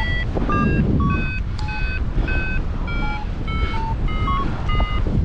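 Paragliding variometer beeping about three times a second, the pitch jumping up and down from beep to beep; its beeping is the sign of the glider climbing in lift. Underneath is a steady rumble of wind on the microphone.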